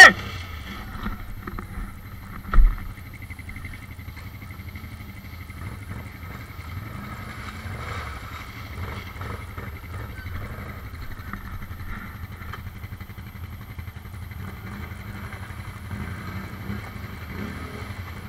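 ATV engine running steadily at low speed along a muddy trail, with one loud low thump about two and a half seconds in.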